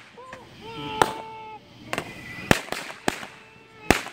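Aerial firework cake firing shot after shot: a run of about six sharp bangs, roughly half a second to a second apart.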